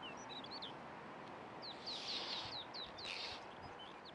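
Small songbird singing: scattered high chirps, then a quick run of about seven short sweeping notes, over a steady background hiss.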